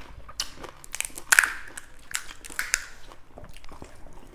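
Crisp fried pani puri shells crunching as they are broken open and bitten: several short, sharp crunches, the loudest about a second and a half in.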